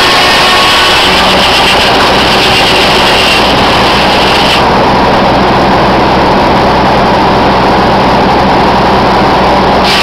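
Circular sawmill running, a loud, steady mechanical drone with a hum underneath. The high hiss drops away about halfway through.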